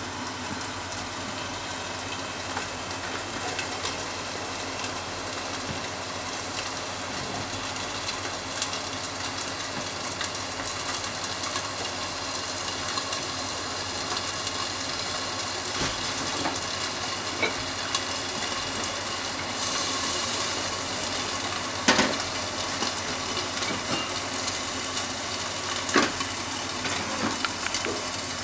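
Sausages and fried eggs sizzling steadily in a frying pan covered with a glass lid, with a few sharper pops of spitting fat.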